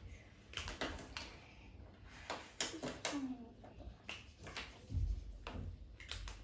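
Felt-tip markers scratching and tapping on paper over hard lap desks, a run of irregular small clicks, with a dull thump about five seconds in.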